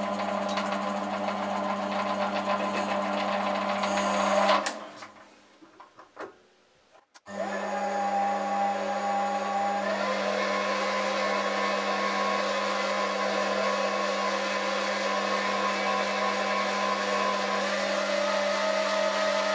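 Foreman TB1835 mini metal lathe running with a steady motor and spindle hum. It winds down about four and a half seconds in, a few light clicks follow, and it starts up again sharply about seven seconds in, then runs steadily.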